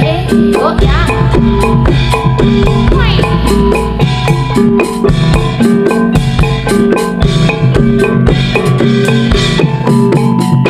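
Loud jaranan accompaniment music played through a PA sound system: fast, rhythmic mallet-struck metallophone notes over drums and heavy bass.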